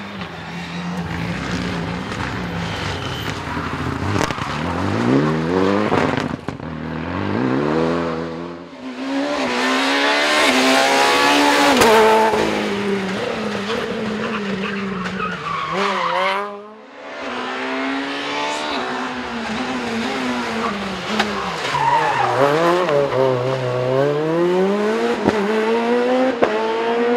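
Rally car engines at full throttle. The pitch climbs through quick gear changes and drops off when the cars brake for corners, and the cars pass close by. About two-thirds of the way through the engine note sinks low, then climbs steadily as the car pulls hard out of a slow corner.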